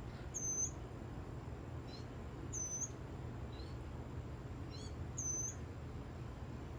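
Northern mockingbird giving short, high chirps, one every second or two, over a steady low background hum.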